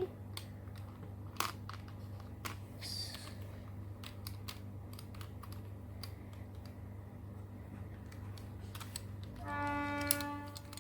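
Small plastic clicks and taps of 4x4 Rubik's cube pieces being handled and pushed into place, scattered and irregular. Near the end a steady pitched tone lasts about a second and is the loudest sound.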